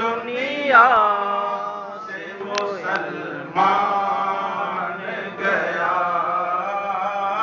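A man's voice chanting an Urdu naat, drawing each syllable out into long wavering sung notes, in about three phrases with short breaks between them.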